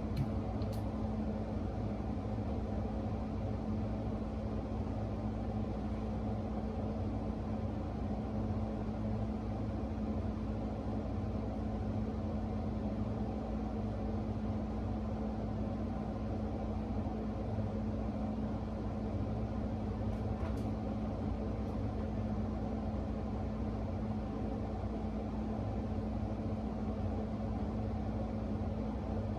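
Steady machine hum with one constant low tone over a low rumble, unchanging throughout.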